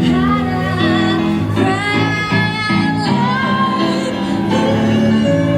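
Music with a singing voice carried over held bass notes.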